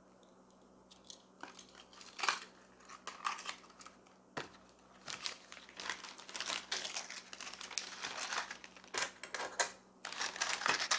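Clear plastic packaging crinkling in irregular bursts as hands unwrap small sewing-machine accessories, starting about a second in.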